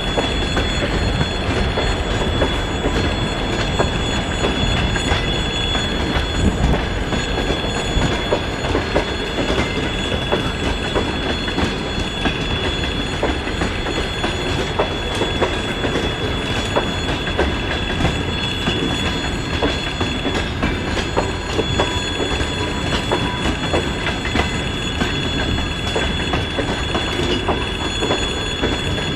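Passenger coaches rolling past on the track, their wheels clicking and clattering over the rails, with a steady high-pitched tone held over the rumble.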